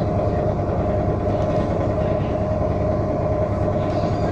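Whirlpool 16 kg top-load washing machine spinning its drum at full speed in the spin cycle: a steady hum with a constant tone over a low rumble. It runs evenly on its repaired suspension.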